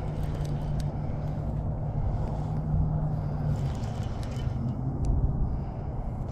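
Steady low rumble with a hum from a running motor; the hum drops a little in pitch about three and a half seconds in.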